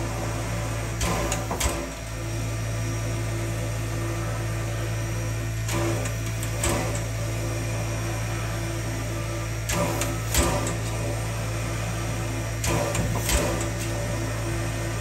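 Cross-compound air pump on the smokebox front of Frisco 1630, a 2-10-0 steam locomotive, working slowly. It gives a pair of sharp strokes every three to four seconds over a steady low hum.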